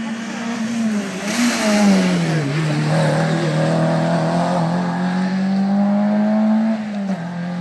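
Rally car engine at speed, its pitch dropping as it slows for a corner about two seconds in, then rising steadily as it accelerates away through one gear.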